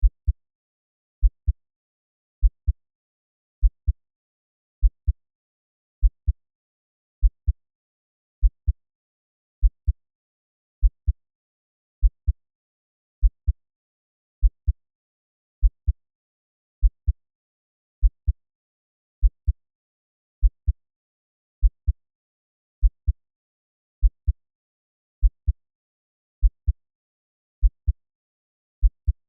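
Slow heartbeat sound at 50 beats per minute: a deep double thud, lub-dub, about every 1.2 seconds, with quiet between beats.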